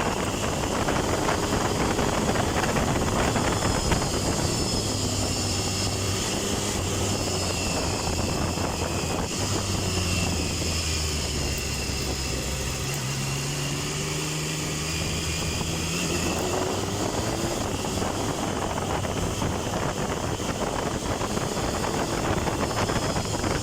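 Triumph Tiger 1050's inline-three engine heard from the rider's seat on the move. Its note drops in the middle, as the bike eases off, then climbs again as it pulls away.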